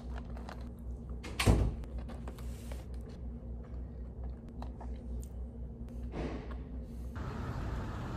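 Fingers picking nuts and candies out of a plastic tub of trail mix: light clicks and rustles over a steady room hum, with one sharp thump about a second and a half in.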